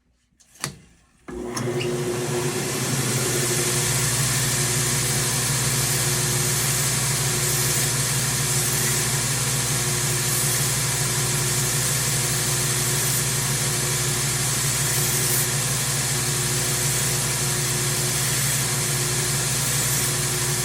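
A knife-grinding machine switched on with a click and spinning up, then running steadily with a low hum and an even whirring hiss.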